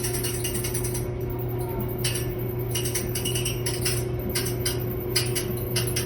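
Clothes dryer running with a steady hum under a rapid mechanical clicking, clinking rattle that drops out and comes back in stretches: an abnormal noise from the running dryer.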